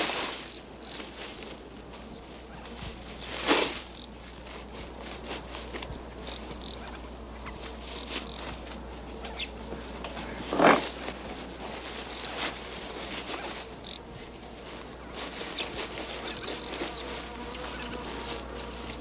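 Steady high-pitched insect chorus, cricket-like, with two short loud animal cries about three and a half and ten and a half seconds in from the lion cubs' struggle with a young warthog.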